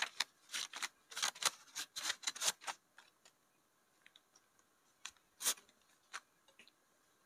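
Rupiah banknotes being straightened and counted by hand: a quick run of crisp paper rustles and flicks over the first three seconds, then a few single flicks.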